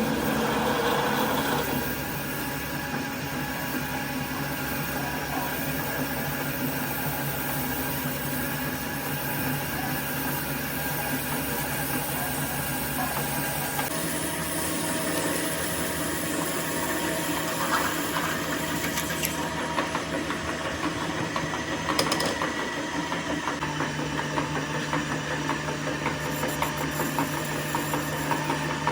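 A machine running steadily with a low hum. The hum shifts in pitch about halfway through and again near the end.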